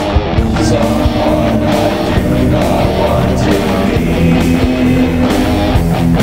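Rock music track with guitar, playing steadily.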